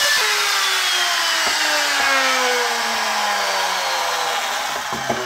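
Electric wood router switched off after a test pass through a plywood template, its motor spinning down: a whine falling steadily in pitch over about five seconds as it fades, with a few light knocks near the end.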